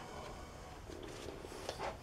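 Quiet workshop room tone with faint handling noise and a soft short knock near the end.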